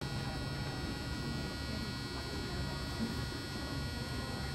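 Steady electrical hum and buzz over a low rumble: the room tone of a large indoor arena.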